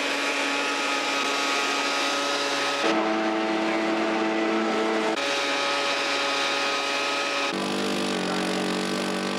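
Snowmobile engines running at steady revs. The engine note jumps abruptly to a different pitch about three, five and seven and a half seconds in.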